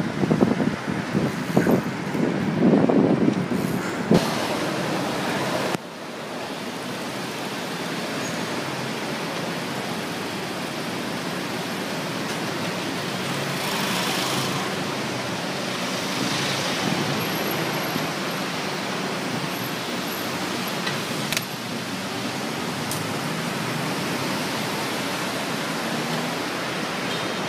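City road traffic heard from a moving bicycle: a steady wash of car and engine noise. For the first six seconds or so, wind buffets the microphone in gusts; then the sound changes abruptly to a steadier traffic hiss.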